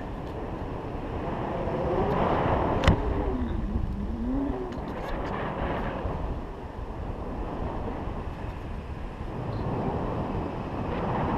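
Wind rushing over the camera microphone in paraglider flight, a steady low noise. A short wavering tone dips and rises a few seconds in, with a single sharp click.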